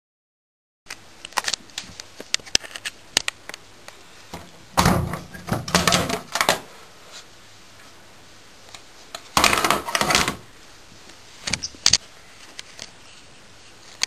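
Plastic plinth panel at the bottom of a front-loading washing machine being worked open by hand, covering the drain filter: scattered clicks and knocks, with two longer scraping rattles about five and ten seconds in.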